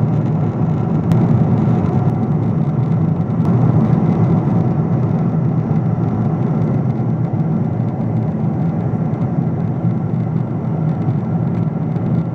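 Steady cabin noise of a Boeing 777-200ER at cruise heard from a window seat: an even, low rush of airflow and its GE90 jet engines.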